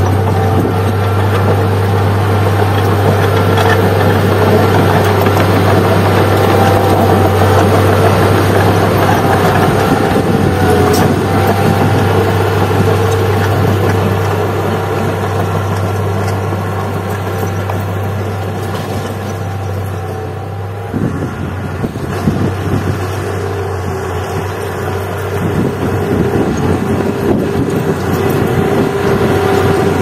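Komatsu D31P crawler bulldozer's diesel engine running steadily under load as the machine pushes soil with its blade. It eases somewhat in the middle and builds again near the end.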